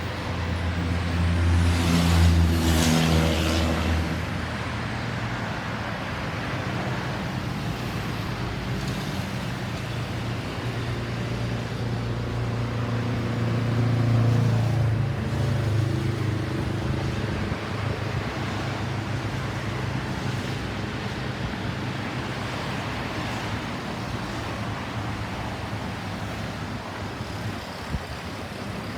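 Road traffic going by. A vehicle with a low engine passes close about two seconds in and is the loudest sound, and another engine swells and fades around the middle. No siren is sounding.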